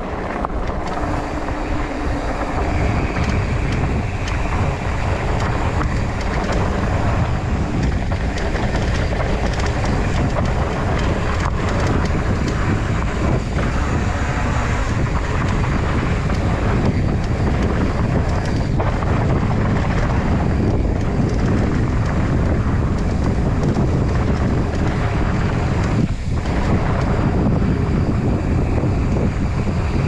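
Wind rushing over the microphone and a mountain bike's tyres rolling fast down a dirt trail, with occasional knocks as the bike hits bumps.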